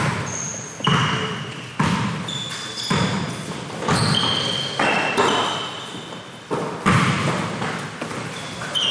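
A basketball bouncing on a hardwood gym floor, about ten bounces at an uneven pace of roughly one a second, each with a short echo. Short high squeaks from basketball shoes on the floor come in between.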